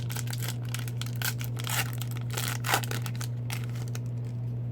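A foil hockey card pack being torn open and crinkled: a quick run of crackling rustles that dies down about three and a half seconds in, over a steady low hum.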